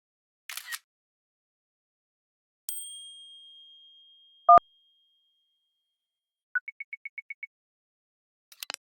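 A series of short iPad built-in system sound effects, each separated by silence: a brief swish, a high ding that rings out for about three seconds, a short loud two-tone beep, then a quick run of seven high beeps, and a click near the end.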